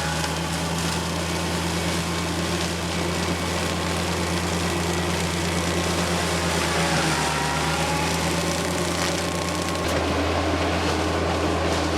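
TYM compact tractor's diesel engine running steadily, driving a Baumalight forestry mulcher, with a faint wavering whine above the engine note. The low engine note shifts slightly about ten seconds in.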